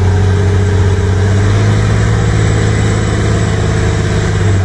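Caterpillar 950F wheel loader's diesel engine running steadily under load as the bucket pushes into a dirt pile, a loud, even low hum.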